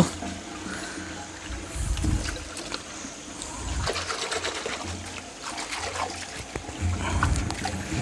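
Spring water trickling and splashing as a hand scoops and stirs through a shallow, muddy spring pool, with a few low thuds.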